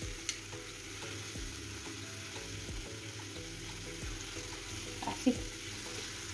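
Ripe plantains sizzling in oil in a frying pan, with a few light clicks of metal tongs against the pan as they are pressed and split open.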